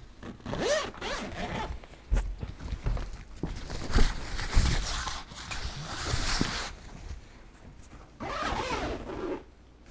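The zipper of a Nike sports bag being pulled along its track in several long strokes, with rustling of the bag's fabric as it is handled.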